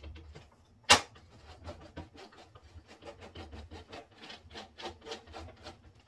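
DeWalt portable table saw's rip fence and rails being slid across the table with the front adjustment knob: one sharp click about a second in, then a steady run of small clicks and rubbing, about four a second.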